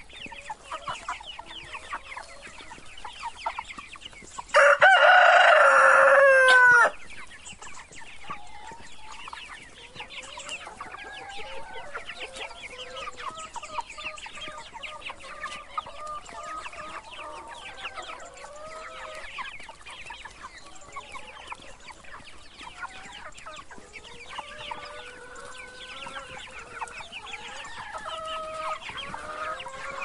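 A large flock of chickens clucking and calling all together, with a rooster crowing once about four and a half seconds in, a long call that falls in pitch at its end and is the loudest sound.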